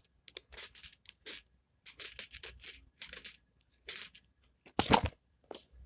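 A small cut-up mat fidget with rubber bands on it being fiddled with by hand: a run of short, scratchy scrapes and rubs, with one louder thump about five seconds in.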